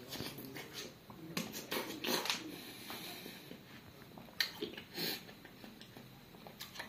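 Soft, wet chewing of a bite of juicy watermelon, in irregular short bursts, with breathing through the nose between them.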